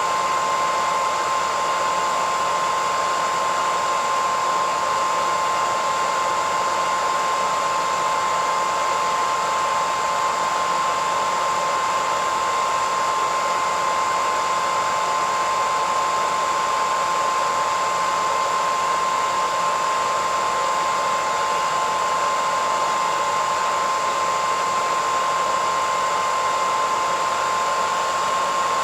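Hairdryer running steadily: a constant rush of blown air with a steady motor whine near 1 kHz, unchanging throughout.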